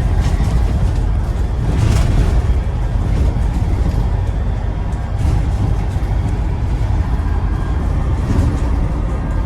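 Inside a Scania Enviro 400 double-decker bus on the move: steady low engine rumble and road noise, with a short rattle about two seconds in.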